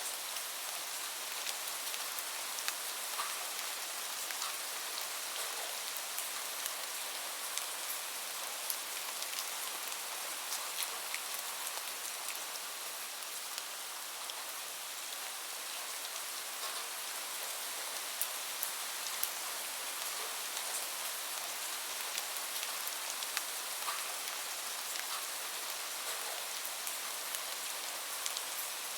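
Steady rain falling, a continuous hiss with many individual drops ticking sharply throughout.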